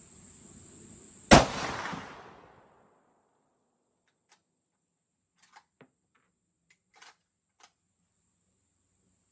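A single shot from a Ruger American Ranch bolt-action rifle in 7.62x39, about a second in, its report ringing out for a second or so before dying away. A few faint clicks follow in the next several seconds.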